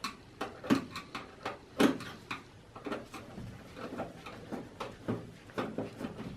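Irregular sharp clicks and taps, a few a second, from screws being undone at the back of a desktop computer's metal case.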